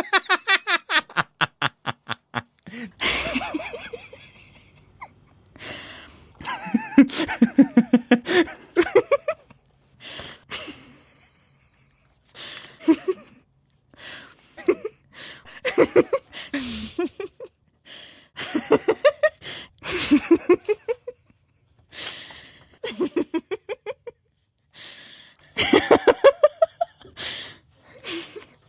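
Repeated bouts of human laughter, each a quick run of ha-ha pulses, with short pauses between the bouts.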